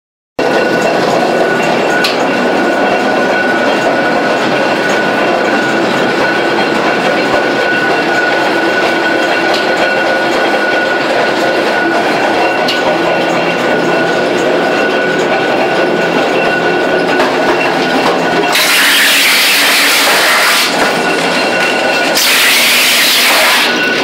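Belt-driven wood chipper with an electric motor running without load: a steady mechanical drone with a thin constant whine. Near the end a broad hissing rush comes in twice over it.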